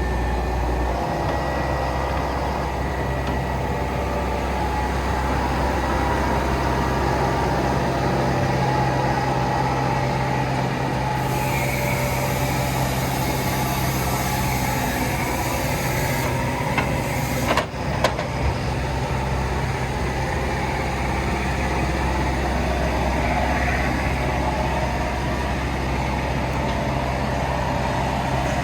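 Vögele Super 1303-3i asphalt paver's diesel engine running steadily. About halfway through, a high hiss lasts some five seconds, followed by a few sharp clicks.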